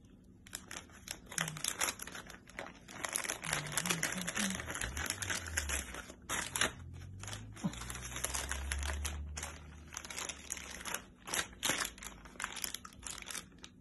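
Thin plastic crinkling and rustling in irregular bursts as hands work a plastic bag open.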